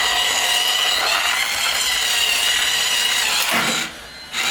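Small electric motor and gears of a remote-control toy car whirring with a steady high whine, cutting out briefly near the end and starting again.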